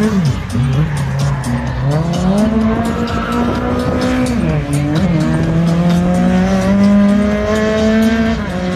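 Lada race car's engine running hard on the track, its pitch dipping about half a second in, climbing again from about two seconds, falling briefly near the five-second mark as it shifts gear, then rising slowly under acceleration until it drops near the end.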